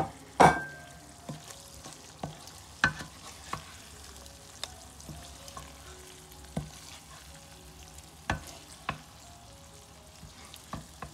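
Wooden spoon scraping and knocking against a non-stick pan and a stainless steel mesh strainer as cooked potatoes and radish pods are scooped into the strainer to drain off excess oil, over a light sizzle of hot oil. The knocks are irregular, the loudest about half a second in with a brief ring after it.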